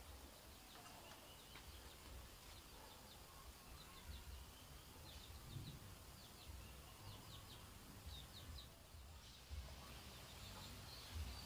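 Faint rural outdoor ambience with small birds chirping: series of short, high chirps, thickest in the middle, over a faint low background rumble.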